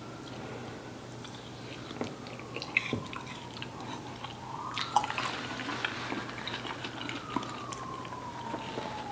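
Close-miked chewing, with wet mouth clicks and smacks, of someone eating chicken curry. In the background a siren wails slowly up and down.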